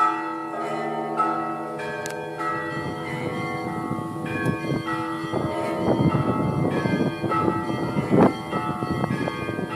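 Peal of Russian Orthodox church bells: several bells of different pitches ringing over one another. About three seconds in, a fast, dense run of small-bell strikes joins the sustained deeper tones and grows busier, loudest near the end.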